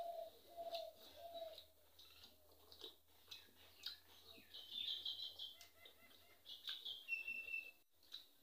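Mouth clicks and chewing of a man eating rice by hand, with a dove cooing several times in the background during the first second and a half.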